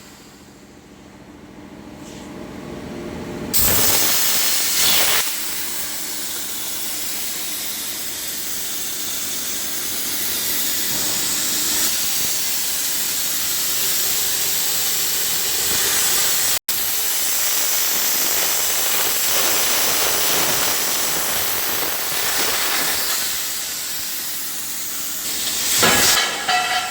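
CNC gantry plasma cutting torch firing: a loud, steady hiss starts suddenly a few seconds in, breaks off for an instant midway, and dies away just before the end.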